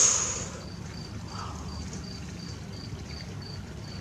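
A cricket chirping steadily, about three short high chirps a second, over low steady background noise. A brief hiss at the very start is the loudest sound.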